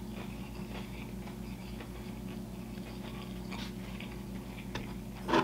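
A person chewing food close to the microphone, with soft wet smacks and clicks of the mouth, over a steady low hum. A brief louder mouth sound comes just before the end.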